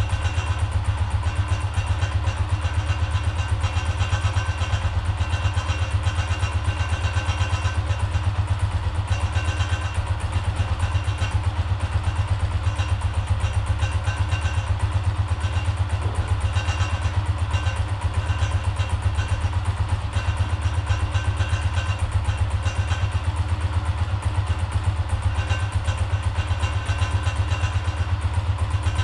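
Honda CGL 125's air-cooled single-cylinder four-stroke engine idling steadily, with an even, rapid beat.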